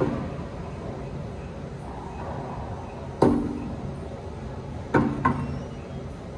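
Racquetball impacts in an enclosed court, each with a short echo: one loud smack about three seconds in, then two quick hits about a third of a second apart near five seconds.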